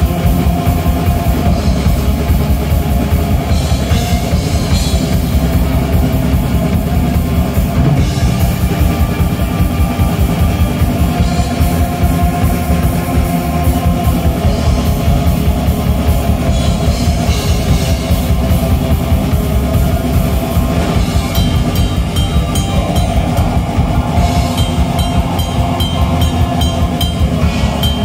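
Black metal band playing live, loud and without a break: heavily distorted electric guitars over a rapid drum kit.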